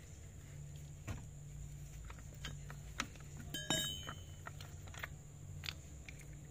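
Scattered metallic clinks of an L-shaped socket lug wrench against the wheel nuts of a car's alloy wheel as the nuts are turned by hand, about one every second, one with a short ring just before the middle. A low steady hum runs underneath.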